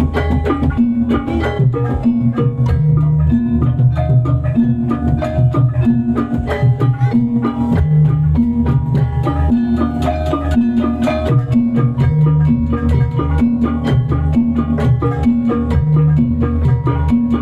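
Amplified live band music with a steady beat: plucked strings or guitar over bass and drums, played through a stage sound system during a sound check.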